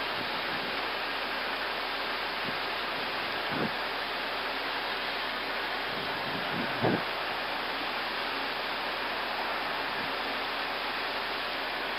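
Steady hiss of an Airbus A320 cockpit in flight, with a couple of brief faint knocks, the clearer one about seven seconds in.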